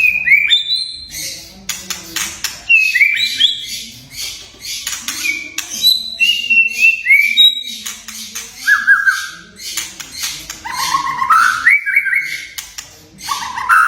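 White-rumped shama (murai batu) singing: loud, clear whistled notes, many sliding down in pitch, mixed with rapid dry clicking rattles (kretekan). Toward the end the whistles climb in a series of rising steps.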